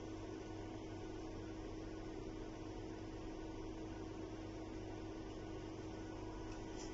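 Steady hum with a faint hiss and no distinct events: room tone.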